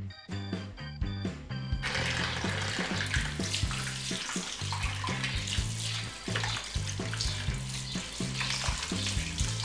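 Tap water running and splashing into a bowl of water as pomegranates are rinsed under it, starting about two seconds in. Background music with a steady bass line plays throughout.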